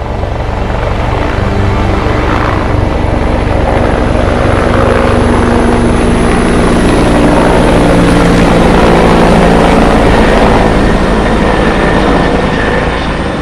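Aérospatiale SA 315B Lama helicopter hovering with a sling load, its rotor beating fast and evenly over a steady high whine from its single turboshaft engine. Loud, swelling a little toward the middle.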